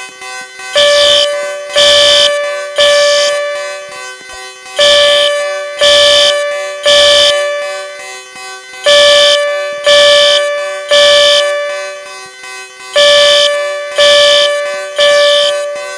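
Fire alarm horn being tested, sounding the temporal-3 evacuation signal: loud blasts in groups of three, about a second apart, with a pause after each group, the pattern repeating about every four seconds.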